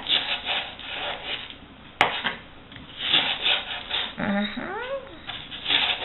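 Chef's knife slicing lengthwise through leek and scraping on a plastic cutting board in repeated strokes. There is a sharp tap about two seconds in and a brief vocal sound about four seconds in.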